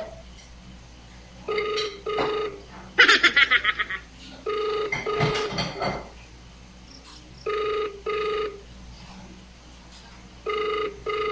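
Telephone ringback tone from a mobile phone on an outgoing call: a double ring repeating every three seconds, four times in all, while the call rings out unanswered. About three seconds in, a short, loud burst of rapid high-pitched pulses breaks in.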